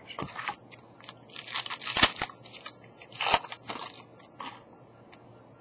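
Hockey trading cards being handled and flipped through: a run of crisp crackles and snaps, the two loudest about two and three and a half seconds in.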